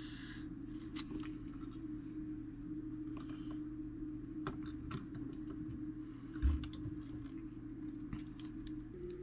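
Light, irregular clicks and taps of small metal parts being handled while a fusee clock movement is put together, over a steady low hum, with a single low thump about six and a half seconds in.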